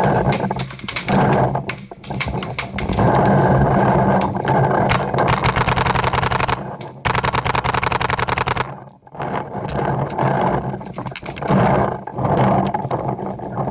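Paintball markers firing rapid strings of shots. One long burst of about a dozen shots a second runs from about seven seconds in and stops suddenly, over loud, rough rumbling noise.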